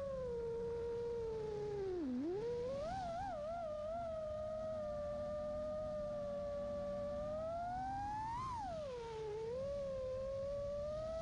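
FPV racing quadcopter's motors and propellers whining, the pitch swooping up and down with the throttle: it drops sharply about two seconds in, climbs back, and rises higher before falling again near the end. A rough rush of prop wash and wind runs underneath.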